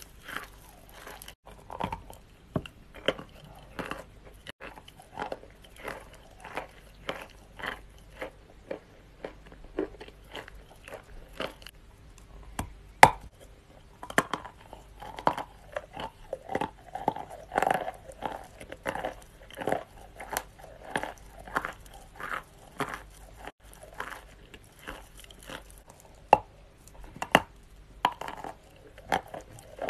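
Dry clay being bitten and chewed: a run of loud, sharp crunches, about one to two a second, with one especially loud crack a little under halfway through.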